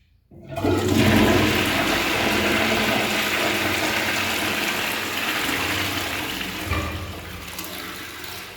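A Jaquar one-piece toilet flushing: a sudden loud rush of water starts just after the beginning and slowly dies away as the bowl drains and the tank refills.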